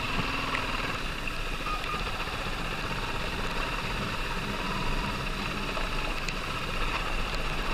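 Motorcycle running steadily under way, with a constant rush of wind and road noise.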